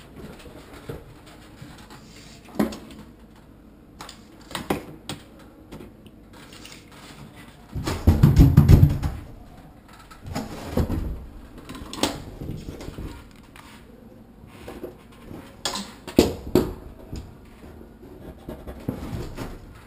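Handling noises from a sheet of Kerdi-board foam panel and a tape measure while the board is measured and marked: scattered knocks and clicks, with a louder scuffing rustle about eight seconds in.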